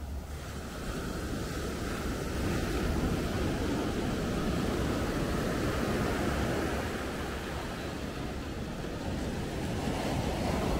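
Sea waves washing onto a beach, with wind buffeting the microphone; the wash swells about a second in.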